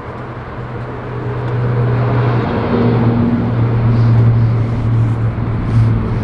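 A motor vehicle's engine running steadily with a low hum, getting louder over the first two to three seconds, under a broad rushing noise.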